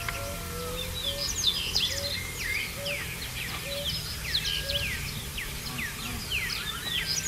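Many birds chirping at once, with quick, high calls sweeping downward one after another, over a low steady hum. A lower short note repeats at a steady pace through it.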